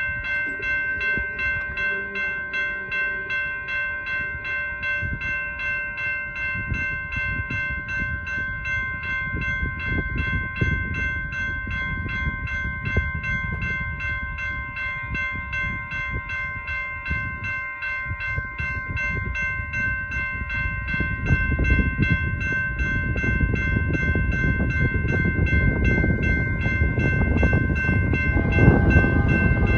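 Railroad grade crossing warning bell ringing steadily at about two strokes a second, over a low wind rumble on the microphone. Near the end the horn of an approaching train joins in and the sound grows louder.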